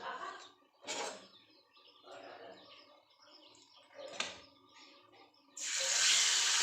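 Birds chirping in the background with a couple of short knocks, then about five and a half seconds in a loud sizzle starts suddenly as food goes into hot oil in a frying pan.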